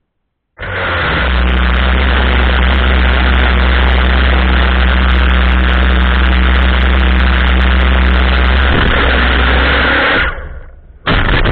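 5-inch FPV quadcopter's motors and propellers running loud and steady in flight, heard up close. The noise starts abruptly, cuts off about ten seconds in, and returns in one short burst near the end.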